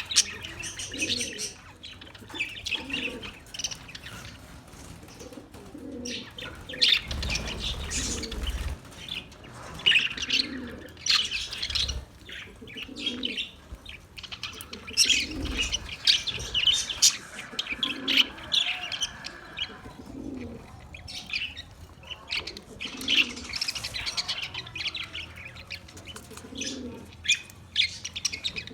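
A flock of budgerigars (small Australian parrots) chattering with rapid, high chirps and warbles, with low cooing notes repeating every second or two under them.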